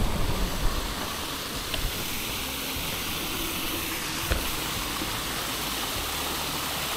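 Steady rushing of a waterfall, with two faint clicks a few seconds apart.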